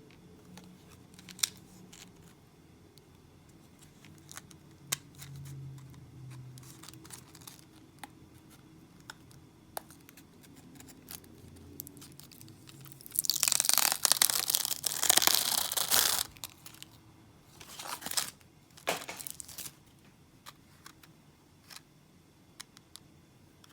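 Plastic blister packaging of a microSD card being opened: scattered small clicks of handling, then a loud tearing crinkle of plastic about halfway through lasting around three seconds, followed by two shorter crinkles.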